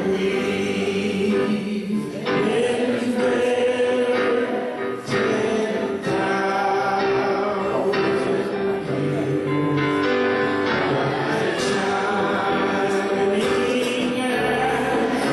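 A group of voices singing a Christian hymn together, holding long sung notes.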